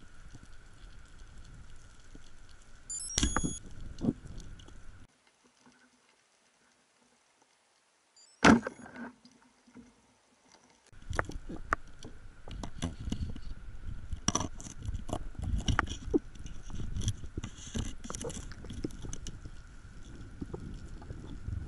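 Underwater sound of spearfishing gear: a few sharp knocks of the speargun and shaft against rock, the loudest about eight seconds in. After a gap of near silence comes a dense crackle of small clicks over a faint steady whine.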